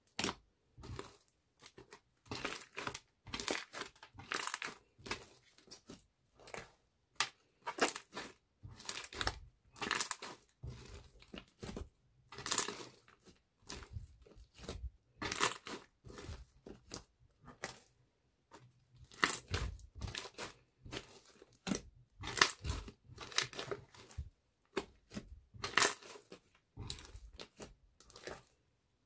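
Thick homemade slime being pressed, kneaded and pulled apart by hand, giving irregular bursts of short clicks and pops with brief pauses between them.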